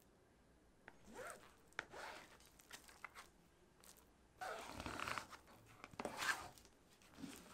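Faint handling sounds: a run of short rasping, scraping strokes starting about a second in, loudest over the second half.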